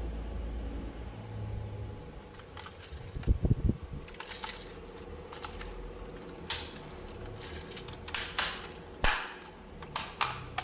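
Plastic toys and packaging being handled: a few low thumps about three seconds in, then a string of sharp clicks and clacks in the second half over a steady low hum.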